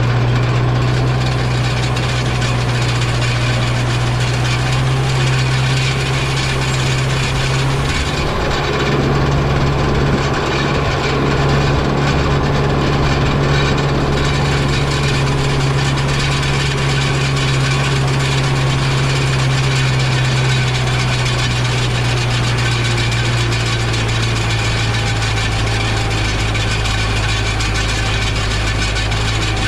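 Tractor engine running at a steady speed.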